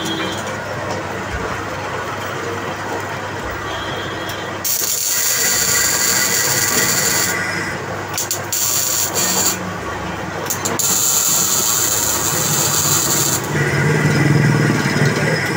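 Manual metal lathe running, its tool cutting the spinning workpiece. A high-pitched hiss comes in two long stretches, about five and eleven seconds in, over the machine's steady hum.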